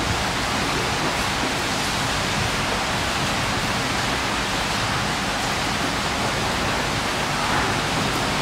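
Steady rushing noise, even and unbroken, with no separate sounds standing out.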